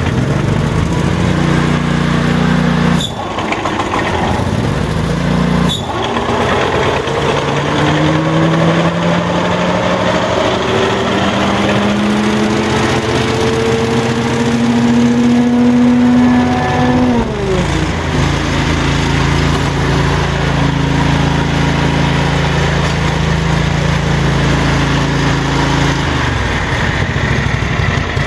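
Grasshopper Model 618 zero-turn mower's 18 HP Kohler gasoline engine running. Its speed climbs slowly for several seconds, drops quickly back to a lower speed about halfway through, and holds steady there. Two sharp clicks a few seconds apart near the start.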